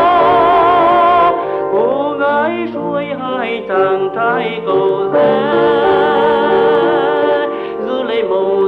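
Background music: a Vietnamese song with instrumental accompaniment. It holds a long wavering note at the start, moves through shorter gliding phrases, then holds another long note from about five seconds in.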